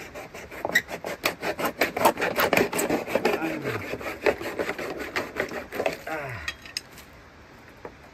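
A plastic water bottle being cut open by hand to make a bowl: quick rasping, sawing strokes, several a second, that stop about six and a half seconds in, followed by a few light clicks of the plastic.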